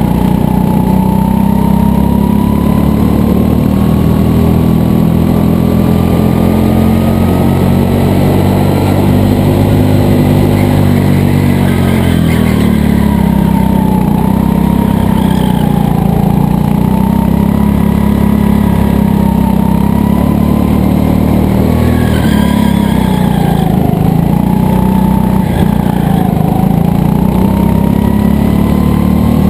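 Racing go-kart engine running hard. Its pitch climbs steadily for about the first ten seconds, then falls and rises again several times as the kart brakes for corners and accelerates out of them.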